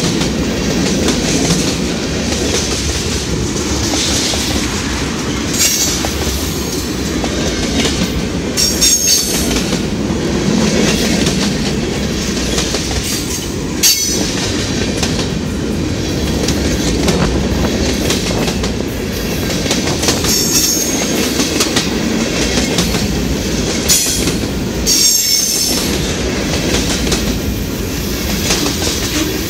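Freight cars rolling past close by: a steady rumble of steel wheels on rail, with short high-pitched wheel squeals several times and an occasional sharp click over the rail joints.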